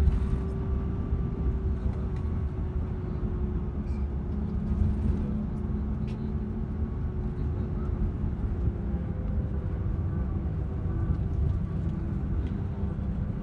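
Steady engine drone and road rumble of a moving road vehicle, heard from inside the cabin, with an even low hum throughout.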